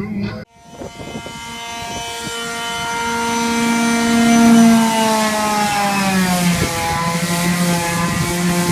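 An electric power tool motor running steadily, growing louder towards the middle, its pitch sagging slightly in the second half. It starts after a sudden break about half a second in.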